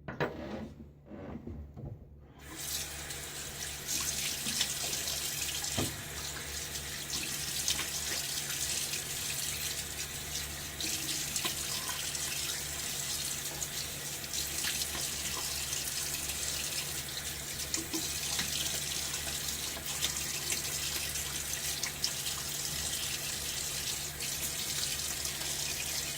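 Bathroom sink tap running, water splashing into the basin, starting about two and a half seconds in and running steadily on. Typical of rinsing the face or razor after a shaving pass.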